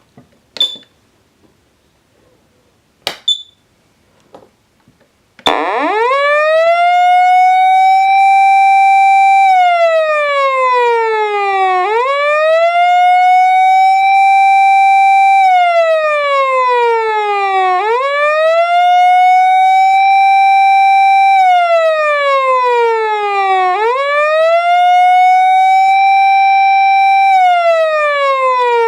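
A few short clicks, then a Patlite SAP-500FBZ fire-engine electronic siren amplifier starts sounding about five seconds in. Its tone climbs to a high pitch, holds for about two seconds, then slides slowly down before climbing again, repeating about every six seconds.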